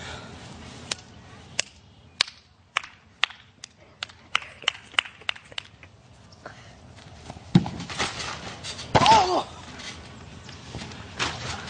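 A run of sharp ticks about twice a second, then a heavy thump as bodies land on a backyard trampoline about seven and a half seconds in, followed by a short shout.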